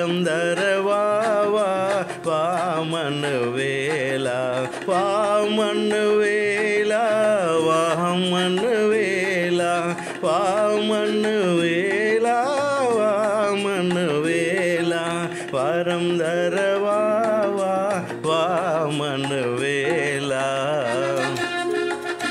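Carnatic-style Tamil Christian keerthanai music, here without words: a sliding, ornamented melody over a steady drone.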